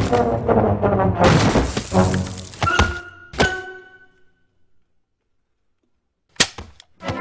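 Orchestral film score with several loud sudden hits, dying away to silence about four seconds in, then a single short sharp thunk near the end.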